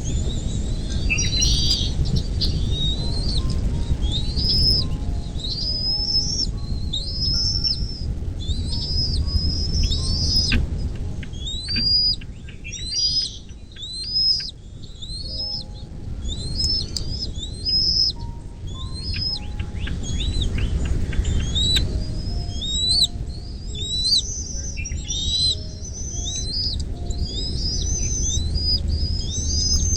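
Birds chirping over and over: short, high, upward-sweeping chirps, several a second, sometimes overlapping, with a steady low rumble underneath.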